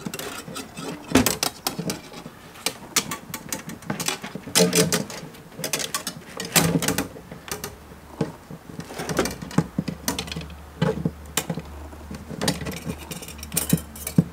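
Irregular clicks, scrapes and rattles of a thin stainless wire and a taped-on Ethernet data cable being pulled by hand through a drilled hole in a cabinet panel.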